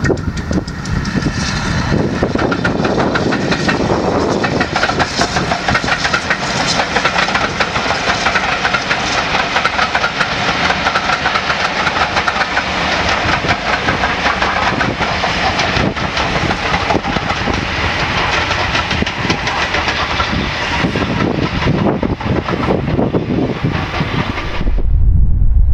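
Steam-hauled passenger train running past, a loud, continuous clatter of wheels on the rails. It cuts off abruptly near the end, leaving wind buffeting the microphone.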